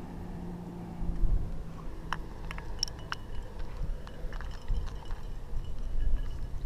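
Climbing hardware clinking: a scatter of light metal clicks from carabiners and cams on a harness rack as a cam is placed in a rock crack. Under it runs a low rumble on the microphone.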